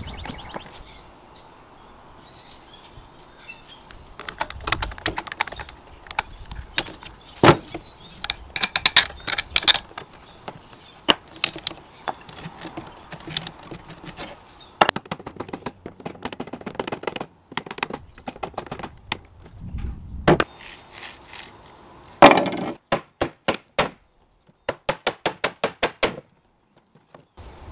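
Old wooden high chair joints clicking, creaking and knocking as glued spindles are twisted and worked loose from the wooden seat. Near the end comes a fast, evenly spaced run of mallet taps on the wood.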